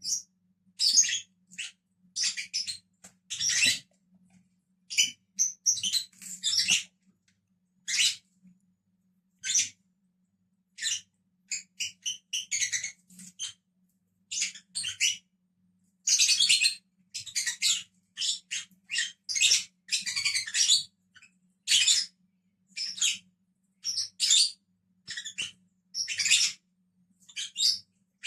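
Pet lovebirds chirping: short, high-pitched chirps and squeaks in quick, irregular runs, busiest about halfway through.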